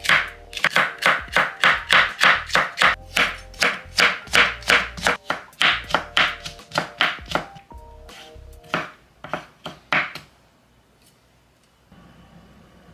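Kitchen knife chopping vegetables (green pepper and carrot) on a wooden cutting board: quick, even strokes at about three to four a second, slowing to a few separate strokes and stopping about ten seconds in. Background music plays under the first part.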